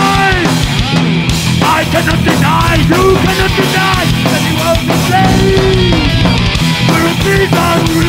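A live heavy rock band playing loudly: electric guitars, bass guitar and drum kit, with a man's voice sung into the microphone over them.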